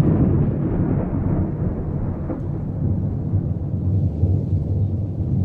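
Thunder rolling in a long, low continuous rumble.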